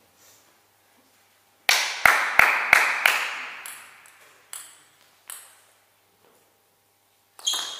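Table tennis ball bounced five times in quick succession, about three bounces a second, then twice more with longer gaps, each a sharp ringing click. Near the end the serve and rally begin, with a fast run of bat strikes and table bounces.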